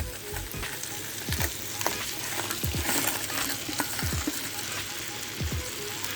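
Blue crab frying in curry oil in a pot, a steady sizzle, with a spoon stirring and knocking against the pot about five times.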